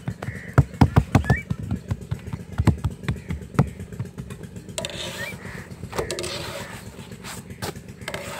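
Roti dough being slapped and patted flat by hand on a floured cloth: a quick, irregular run of sharp slaps for the first few seconds over a steady low rumble, then quieter.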